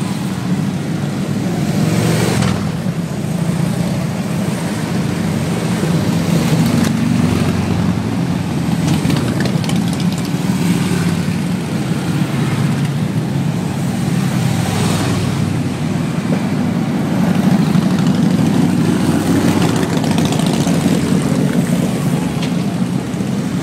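A procession of large touring motorcycles riding past one after another, their engines running in a continuous low drone that swells each time a bike goes by.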